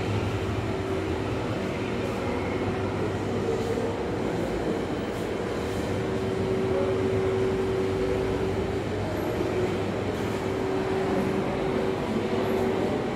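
Steady background hum and rumble of a building interior, with a constant droning tone and no sudden events.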